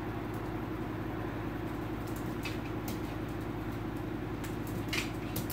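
A steady low mechanical hum with a few faint clicks near the end.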